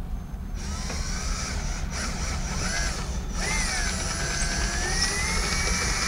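Cordless drill boring a hole into drywall, its motor whining with a pitch that wanders up and down as trigger and load change. It starts about half a second in, cuts out briefly twice, and rises in pitch near the end.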